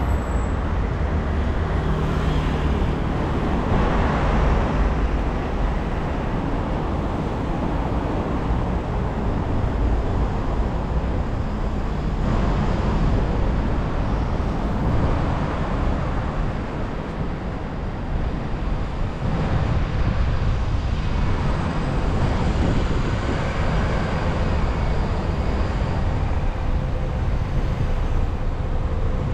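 City road traffic heard from a moving bicycle: a steady rush of traffic with a heavy low rumble, and vehicles now and then swelling louder as they pass.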